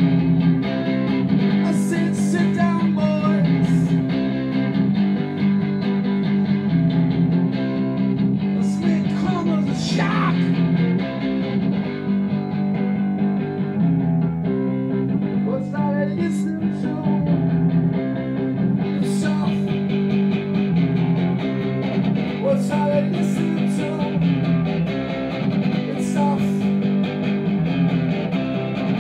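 Electric guitar played live through an amplifier, strummed chords in a steady repeating pattern: an instrumental break with no singing.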